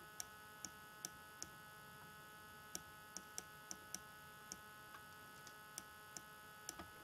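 Faint, irregular clicks from handwriting input on a computer, about two a second, over a steady electrical hum at near-silent level.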